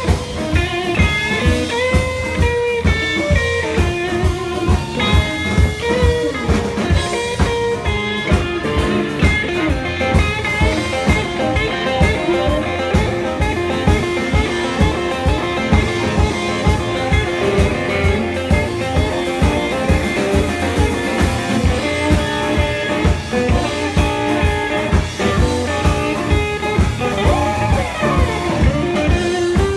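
A band playing blues, guitar lines over a steady drum beat.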